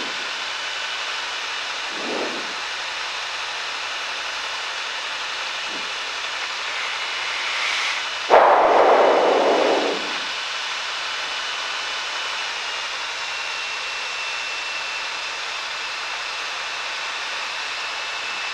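Steady in-flight cabin noise of a Cessna 172, engine and airflow making an even rushing hiss. About eight seconds in, a louder rush starts suddenly and fades after about two seconds.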